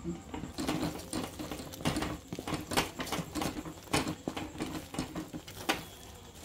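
Wooden spatula stirring and scraping against a metal pan, working urad dal and rice flour into hot coconut milk and palm jaggery syrup as it thickens to a paste: quick irregular scrapes and taps.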